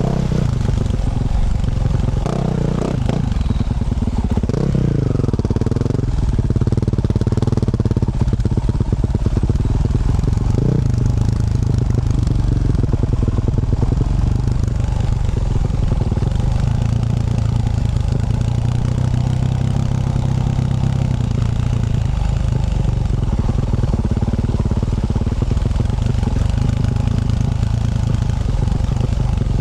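2024 Yamaha YZ450F dirt bike's single-cylinder four-stroke engine running under way through a Yoshimura RS-12 exhaust. The revs rise and fall several times in the first ten seconds or so, then the engine runs steadily.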